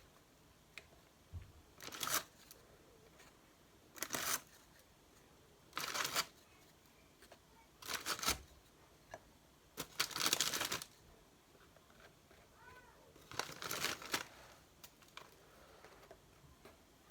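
Plastic biscuit packet rustling and crinkling in short bursts, about every two seconds, as biscuits are taken out and laid down.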